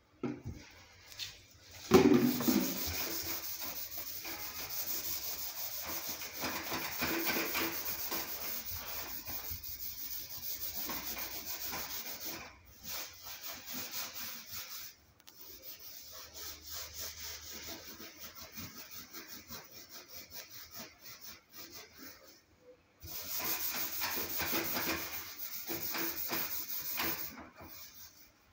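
Scrubbing inside the metal cavity of a commercial convection oven: rapid back-and-forth scrubbing strokes in spells with short pauses. A single loud knock about two seconds in.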